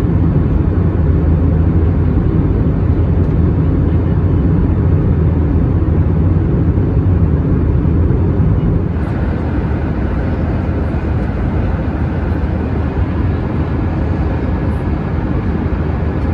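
Steady jet cabin noise of an Airbus A320 in flight: a deep engine drone under rushing airflow. About nine seconds in the low rumble eases and a brighter hiss comes up.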